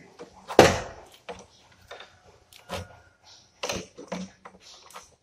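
Scattered metallic clicks and knocks from a wrench on the flare-nut fittings as the copper refrigerant pipes are connected and tightened at the back of a split air conditioner's indoor unit. The loudest knock comes about half a second in, with lighter clicks after it.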